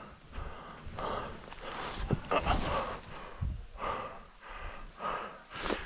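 A person breathing hard, with rapid loud breaths in and out, and a few footfalls, while moving at a run.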